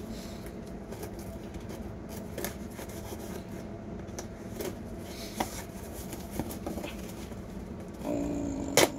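Knife slitting packing tape on a small cardboard box: scattered faint scrapes and clicks, then near the end a louder rasp as the tape pulls away, with a sharp snap.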